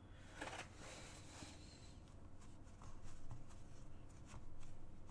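Faint scratchy rustling of a paintbrush working on a canvas, the rustle lasting about a second from half a second in, followed by scattered light taps and ticks.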